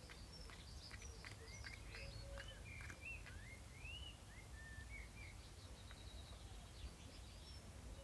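A bird chirping faintly: a run of short whistled notes that glide up and down, most of them in the first five seconds, with a few higher chirps near the end, over a low steady background hum.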